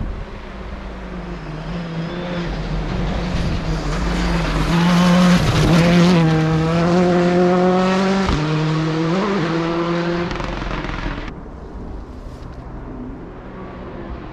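Rally car engine at full throttle. It grows louder as it approaches, is loudest about six seconds in, and dips briefly at a gear change about eight seconds in before fading as it pulls away. The sound changes abruptly near eleven seconds.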